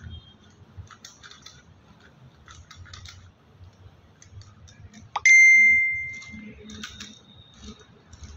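Small metal tools and parts clicking and tapping as they are handled. About five seconds in comes one loud, bell-like metallic ding that rings on and fades over about a second, and a fainter ring follows shortly after.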